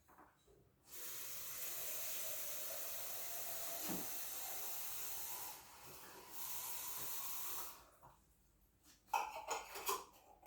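Stream of water running into the bottom chamber of a Primula stovetop coffee maker, a steady hiss that stops about five seconds in and runs again for about a second. A few light knocks near the end.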